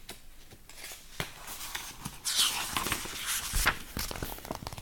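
Pages of a picture book being handled and turned: paper rustling, loudest about two seconds in, among scattered soft clicks and knocks.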